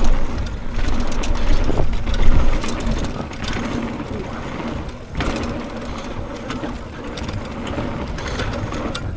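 Trek Marlin 6 hardtail mountain bike descending a dirt trail: tyres running over the ground, the bike clattering over bumps, and wind buffeting the microphone, loudest in the first two seconds or so. Its suspension fork is locked out, so the bike rides rigid and rattles over the rough ground.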